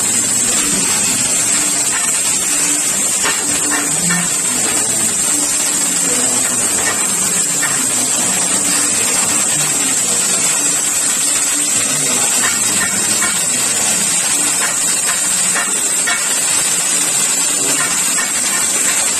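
Oxy-fuel cutting torch on a motorised track cutting carriage hissing steadily as it cuts through mild steel plate, with small crackles scattered through it.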